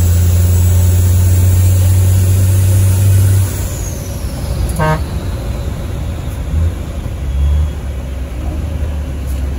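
Iveco S-Way race truck's diesel engine heard from inside the cab, pulling hard with a strong low drone, then easing off about three and a half seconds in to a lower, quieter run as the truck slows. A brief high toot sounds in the middle.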